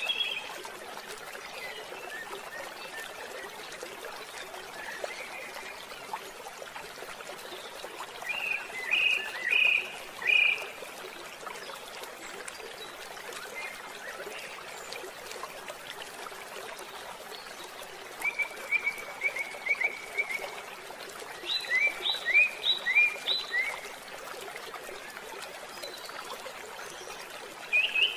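Nature ambience: steady trickling water with bursts of rapid, repeated chirping calls, about eight to ten seconds in, again from about eighteen to twenty-four seconds, and near the end.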